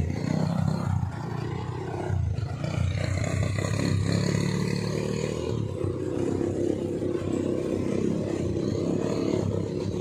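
ATV (quad bike) engines running steadily as the quads drive along a dirt trail.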